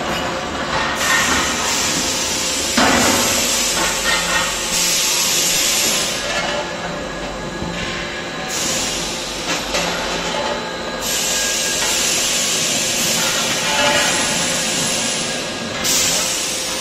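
Steel wheel rim roll forming machine running, with more factory machinery around it: a steady hissing noise over a constant hum, growing louder and softer every few seconds, with an occasional knock of metal.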